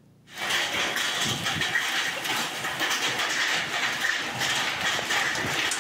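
Hailstones and heavy rain pelting down: a dense, steady clatter of many small hits that starts suddenly about half a second in.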